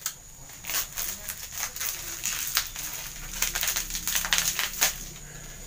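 Clear plastic packaging crinkling and crackling in short, irregular rustles as it is handled and unwrapped.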